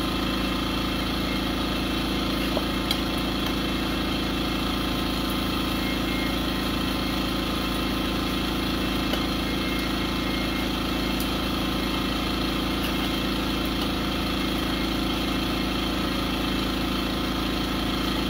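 Portable generator engine running steadily, a constant drone. A couple of faint clicks about three seconds in.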